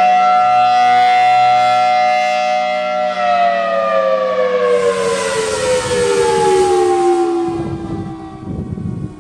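Federal Signal Thunderbolt 1003A outdoor warning siren sounding loud, holding a steady wail, then winding down with its pitch falling steadily from about three seconds in.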